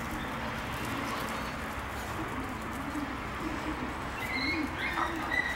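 Pigeon cooing: low, wavy coos repeating over and over, with a few higher chirps near the end.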